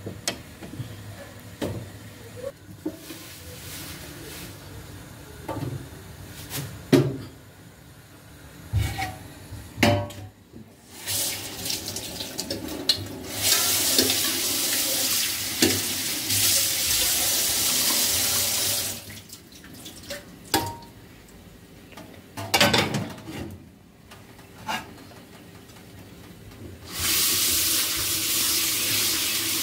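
Kitchen tap running onto a pan in a stainless steel sink while it is rinsed, in two spells of steady rushing water, the first about six seconds long and the second starting near the end. Knocks and clinks of handled kitchenware come between the spells and in the first third.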